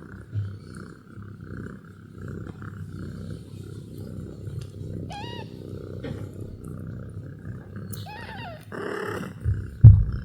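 Cat purring close to the microphone, a steady low rumble. A kitten gives a short high mew about five seconds in and another about eight seconds in. A brief rustle and a loud low thump come near the end.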